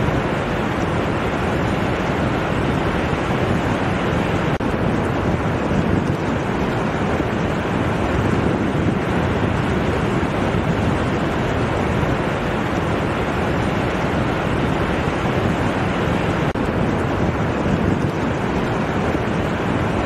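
Ocean surf breaking and washing up a sandy beach: a steady, even rush of water with no single wave standing out.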